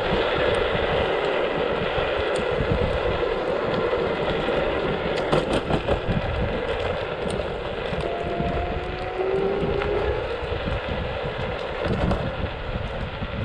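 Motor scooter riding along a road, its engine running under heavy wind buffeting on the microphone. The engine hum eases after a few seconds, and a thin rising whine comes in during the second half.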